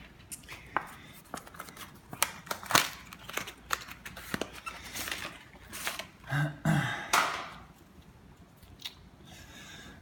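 Scattered sharp clicks, taps and rustling as a bicycle inner tube is handled and fed into a tire on the wheel rim, with a brief murmured voice a little past halfway.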